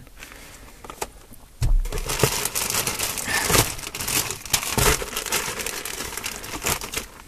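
Clear plastic parts bags crinkling and rustling as they are handled inside a cardboard box. It starts with a bump about a second and a half in and goes on as a dense, crackly rustle until near the end.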